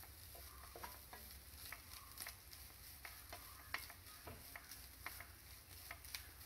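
Wooden spatula stirring and scraping grated coconut as it dry-roasts in a nonstick frying pan: faint, irregular scratches and light taps, several a second.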